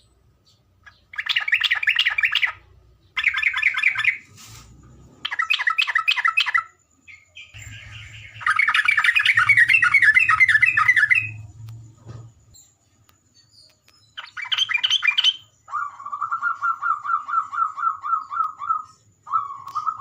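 Trocok (olive-winged bulbul) calling in repeated bursts of rapid chattering notes, each about a second long, with a longer chattering run in the middle. Near the end it gives a steady series of evenly spaced notes, about three to four a second.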